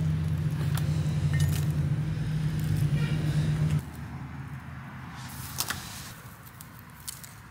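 A steady low motor hum, like an engine running, that cuts off suddenly a little under four seconds in. It is followed by faint rustling and a few light clicks.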